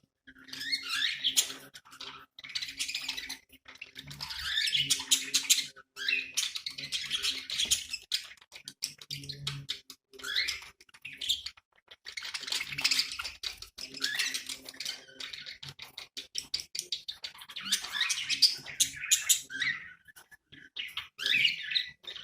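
Budgies (budgerigars) chattering and warbling in quick chirpy phrases of a second or two, with short pauses between them.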